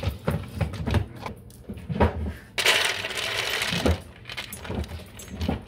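Dog eating dry kibble from a plastic slow-feeder bowl: the pieces clatter and knock against the plastic in quick, uneven clicks. A hiss of noise lasting a little over a second comes about halfway through.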